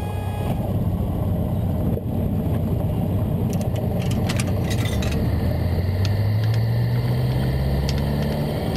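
Cessna 150's Continental O-200 four-cylinder engine and propeller running at high power on the takeoff roll, the engine pitch rising steadily through the second half as the plane gathers speed. A few short clicks about halfway through.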